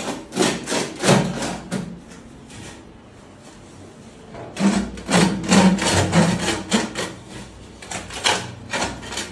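Flexible aluminium chimney exhaust duct crinkling and scraping in irregular bursts as it is pushed and worked into a hole in the wall.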